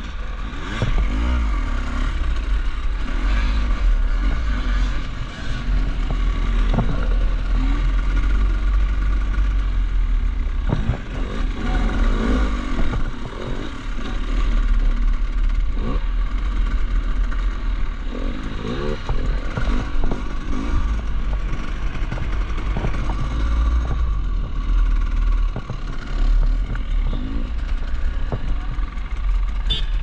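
Enduro dirt bike engines revving up and down repeatedly while riding rough off-road track, with a steady low rumble and scattered clattering knocks.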